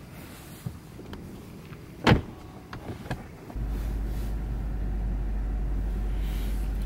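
A car door shuts with one loud thump about two seconds in, among a few small clicks and knocks. Then a steady low rumble inside the car's cabin starts abruptly and holds.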